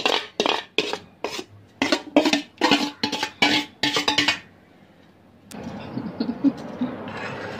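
A metal spoon scraping and knocking inside a steel pot, rapid ringing strokes about four a second, as cooked squid and potato pieces are scraped out. The strokes stop about four seconds in. After a short pause a spoon stirs softly through thick curry in a clay pot.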